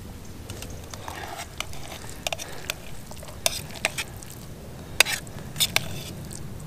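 A utensil stirring and scooping cooked spaghetti in a camping bowl, with irregular clicks and scrapes against the bowl.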